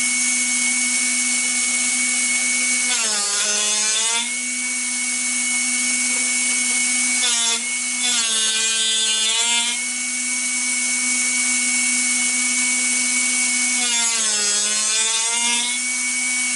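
Drill Doctor drill bit sharpener running with a steady motor hum and a high whine. Three times its pitch sags and climbs back as the drill bit is turned against the grinding wheel, loading the motor while the bit is sharpened.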